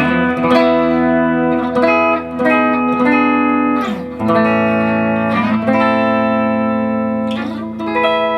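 Clean electric guitar played through a Dr. Z MAZ18 Jr valve amp head into a custom-built 1x12 cabinet with a 12-inch Celestion speaker, on the bridge pickup. A series of strummed chords, the last one left ringing near the end.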